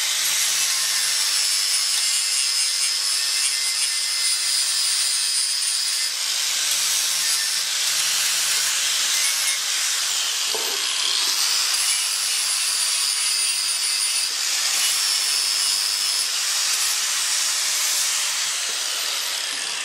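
Angle grinder with a flap disc grinding back the weld on a steel patch in a motorcycle petrol tank: a steady high whine with metal rasping, the pitch dipping briefly as it bites. Near the end the whine falls away as the grinder runs down.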